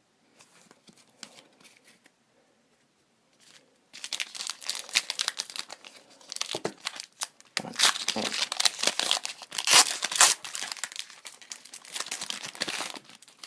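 Foil wrapper of a hockey card pack being torn open and crinkled by hand: a few faint rustles, then from about four seconds in a dense run of crackling and tearing that goes on until near the end.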